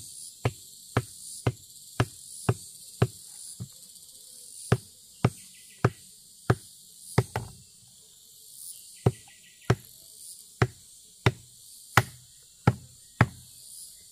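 A hand-held stone knocking a wooden stake into the earth: sharp knocks about two a second, some twenty strikes, with two short pauses. Insects chirp steadily in the background.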